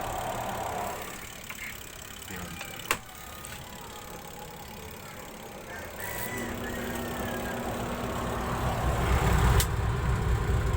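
Hanabishi twin-tub washing machine's spin-dryer motor starting about six seconds in and running up, a steady hum that grows louder: the repaired spin dryer turning again. A sharp click about three seconds in.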